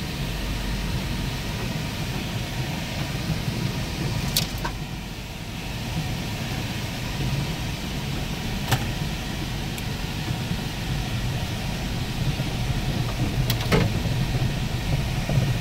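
Toyota FJ Cruiser's 4.0-litre V6 running at low speed on a rutted dirt trail, heard from inside the cab as a steady low rumble with tyre and body noise. A few short sharp knocks stand out: one about four seconds in, one around the middle and a pair near the end.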